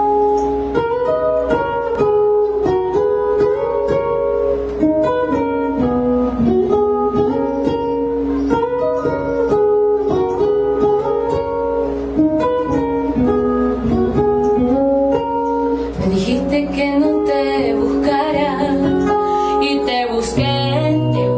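Acoustic guitar with a capo, picking a melodic intro of single notes and chords. About sixteen seconds in, a woman's singing voice comes in over the guitar.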